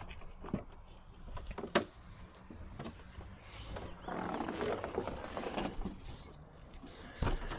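Handling noise of a person climbing into a velomobile and pulling its canopy down: a few sharp knocks, about half a second in, near two seconds and near the end, and a longer rustle of the spandex cover from about four to six seconds.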